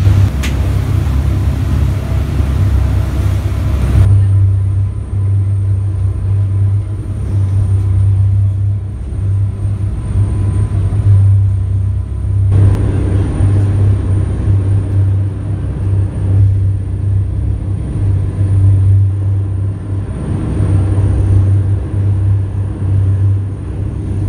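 Engines of a high-speed catamaran ferry running at speed: a steady low drone. For the first few seconds it is mixed with rushing wind and wake water on the open deck, and after that it is heard from inside the passenger cabin.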